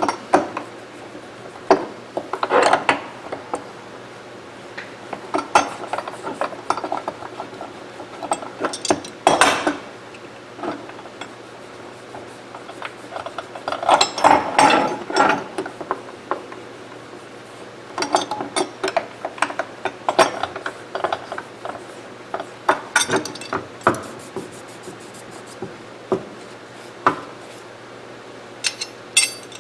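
Small steel parts of a Mossberg 464 lever-action rifle being handled during disassembly: scattered clicks, clinks and light scrapes of metal on metal, coming in short clusters.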